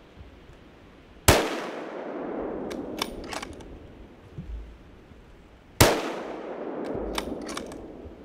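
Two gunshots about four and a half seconds apart, each followed by a long echo rolling away through the woods. A few sharp clicks come between and after the shots.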